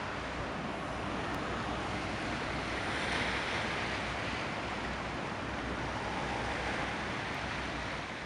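Steady rushing of wind and sea, with wind buffeting the microphone, swelling a little about three seconds in.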